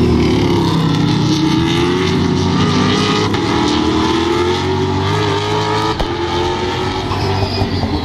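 V8 touring race cars running hard through a corner, their engine notes dropping and then climbing as they accelerate away, with more than one car heard at once.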